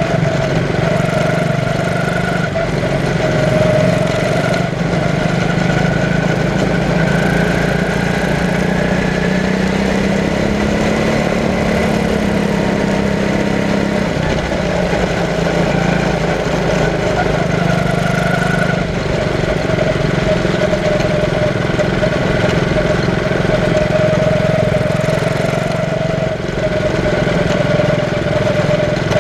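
Quarter midget race car's single-cylinder engine running on track, heard from on board just behind the driver, its pitch rising and falling as the throttle comes on and off.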